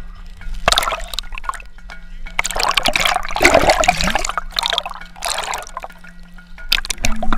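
Sea water splashing and gurgling around a camera as it is dipped in and out of the surface, in irregular surges, the loudest about three to four seconds in. A faint steady low hum runs underneath.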